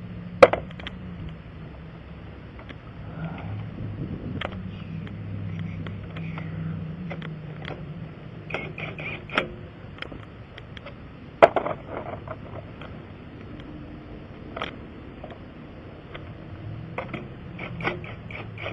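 Hand tools clinking and ratcheting during a tire repair, with two sharp metal knocks, one about half a second in and one near the middle, over a steady low hum.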